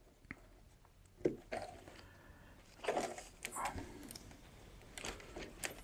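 Soft rustling and a few scattered light clicks as a camo fabric pouch is handled and shifted about on a sewing machine bed; the machine itself is not running.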